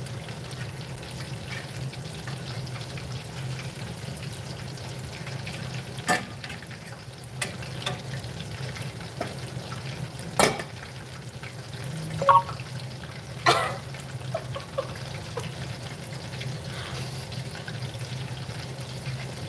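Chicken thighs deep-frying in oil in a stainless-steel saucepan on low heat, giving a steady bubbling sizzle. A handful of sharp clicks or pops stand out, mostly in the middle stretch.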